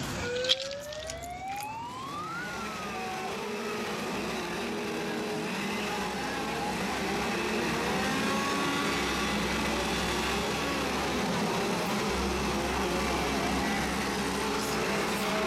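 Gas chainsaws running and revving amid a crowd, a steady wavering engine noise. A siren-like wail rises and then falls in the first couple of seconds.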